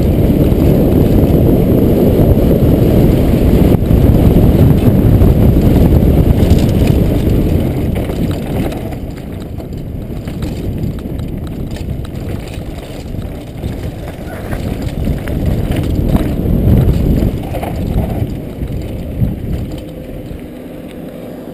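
Wind rushing over a helmet camera's microphone and a downhill mountain bike rattling over grass at speed. The noise drops away about nine seconds in as the bike slows, with one sharp knock near the end.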